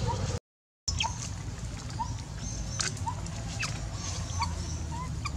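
Outdoor ambience: a steady low rumble with short chirps recurring about once a second and scattered light clicks. The sound drops out completely for about half a second just after the start.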